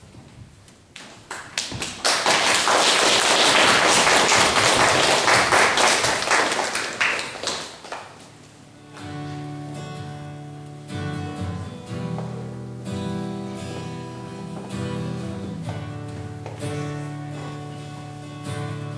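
Audience applause that swells quickly and dies away after about six seconds, followed from about nine seconds in by instrumental music with sustained notes.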